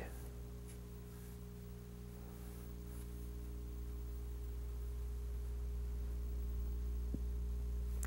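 Steady electrical hum with several overtones, under faint scratching of a pencil sketching strokes on drawing paper.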